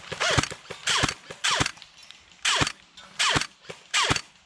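Airsoft guns firing in short bursts, about six of them, spaced roughly half a second to a second apart.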